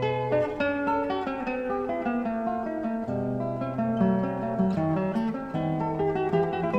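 Background instrumental music led by acoustic guitar, with a run of plucked notes and chords.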